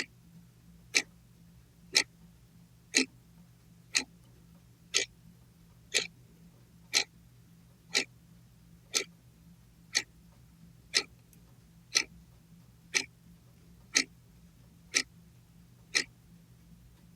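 Clock ticking sound effect: a sharp, even tick exactly once a second, the ticks stopping about a second before the end.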